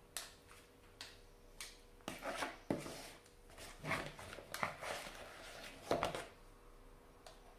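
Metal spoons clinking and scraping against each other and against the paper cupcake cases as cake batter is scooped up and pushed off into the cases: irregular sharp clicks, with a few longer scrapes about two seconds in and again about six seconds in.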